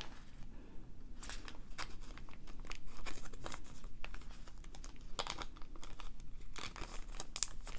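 Small plastic bead bag crinkling as it is handled and folded, in short irregular rustles.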